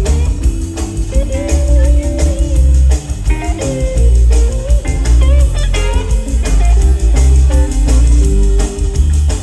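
Live rock band playing loudly: a hollow-body electric guitar plays bending, sustained lead lines over heavy bass and a steady drum beat.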